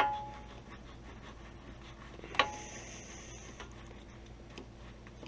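Two sharp metallic clinks about two and a half seconds apart, each with a short ring, and faint ticking between: a crescent wrench knocking against the metal four-wheel-drive actuator as it is unscrewed from the front differential.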